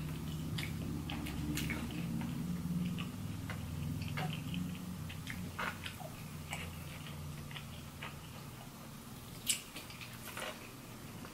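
Close-up chewing and biting of a fried chicken tender, with wet mouth clicks and smacks scattered through it over a low steady hum that fades during the first half. One sharp click about nine and a half seconds in is the loudest sound.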